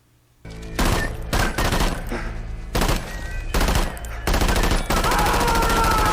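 Movie soundtrack gunfire: a gun fired again and again, single shots at first, then rapid shots close together from about five seconds in. A few steady high tones join near the end.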